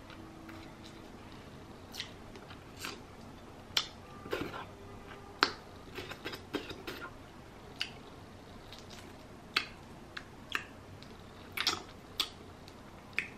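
Boiled shrimp being peeled by hand and chewed close to the microphone: irregular sharp crackles and clicks of shell, a dozen or so, with soft chewing between.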